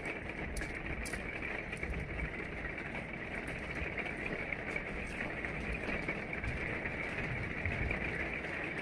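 Steady background hum and hiss of room noise, with a few faint light clicks in the first second and a half.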